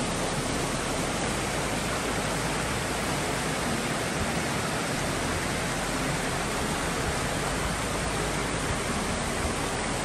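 A small rocky brook rushing steadily over low cascades, a dense, even rush of water.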